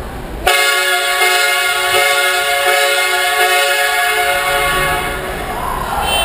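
Train horns giving one long loud blast in a parking garage. The blast starts suddenly about half a second in, holds steady for about four and a half seconds, then eases off near the end.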